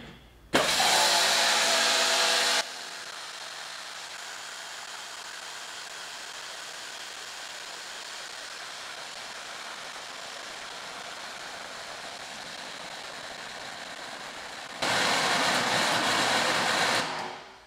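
Bauer 2300 psi brushless electric pressure washer running, its motor and pump humming while it sprays water through the 15-degree nozzle into a plastic bucket. The sound starts about half a second in, drops to a quieter steady hiss about 2.5 s in, comes back up loud about 15 s in and stops shortly before the end.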